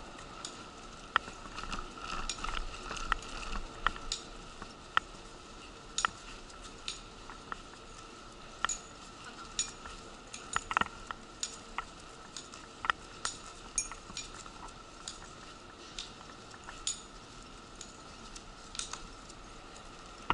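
Wheelchair rolling along a concrete station platform, its frame and casters rattling with irregular sharp clicks and clinks, over a steady high hum.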